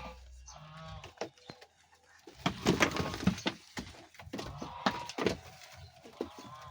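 Young goat coughing after suckling from its mother: a run of sharp, loud coughs about two and a half seconds in, then a few more around five seconds.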